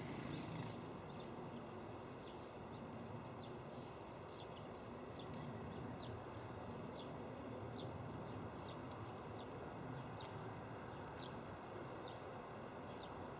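Small birds chirping: many short, faint, high calls scattered irregularly, about one every half second, over a steady low outdoor rumble.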